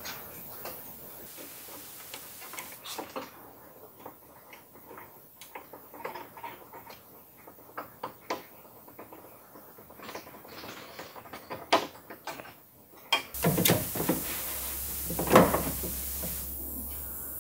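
Small metal clicks and taps of screws and a screwdriver as an inside door handle is screwed onto a bare steel truck door, with a few louder knocks near the end.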